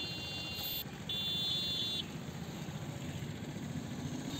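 Steady low rumble of a nearby vehicle engine running. A high-pitched steady tone sounds twice over it in the first two seconds, each time for about a second.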